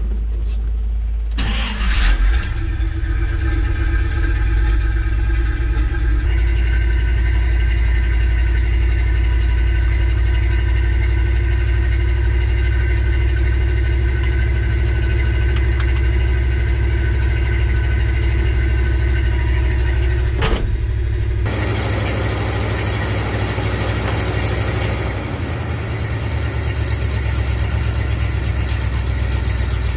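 1968 Jeep Gladiator's engine cranking and catching about two seconds in, then idling steadily. About twenty seconds in, a steady hiss joins the idle.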